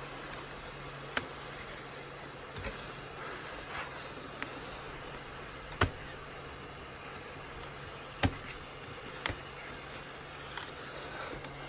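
Heat gun blowing steadily over a laptop keyboard's metal backplate, with a few sharp clicks or snaps as the keyboard is pried at its edge, the loudest about six and eight seconds in.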